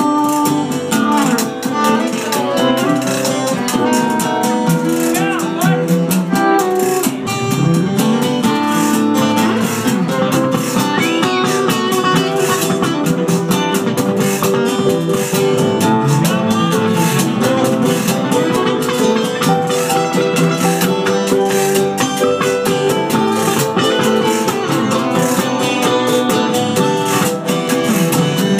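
Live band playing a song: several guitars strummed in a steady rhythm, with keyboard.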